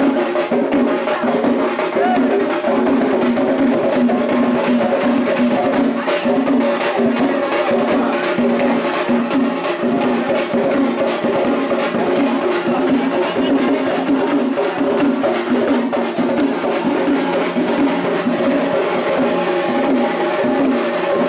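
Percussion-led music: drums beaten in a steady, driving rhythm over a held tone.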